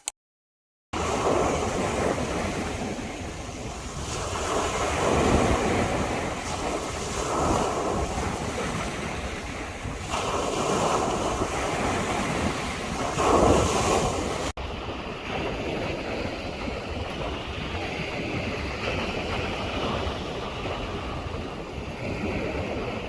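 Sea waves breaking and washing on the shore, swelling every few seconds, with wind buffeting the microphone. About two-thirds of the way through it cuts abruptly to another stretch of surf that is steadier and duller.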